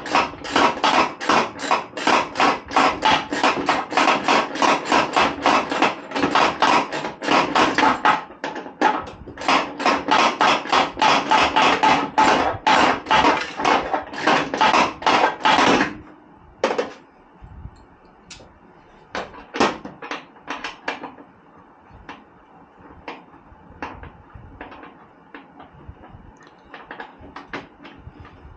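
Socket ratchet clicking in quick, even runs as a bolt on the Jeep's fender is turned, about four or five clicks a second. About sixteen seconds in it stops, and only scattered clicks and small metal knocks follow.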